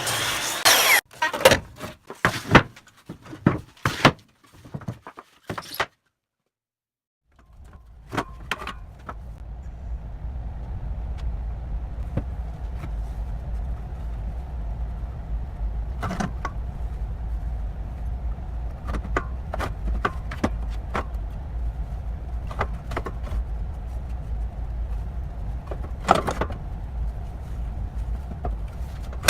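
Workshop handling noise: sharp knocks and clatter of parts being moved, then after a cut a steady low rumble with scattered clicks and knocks.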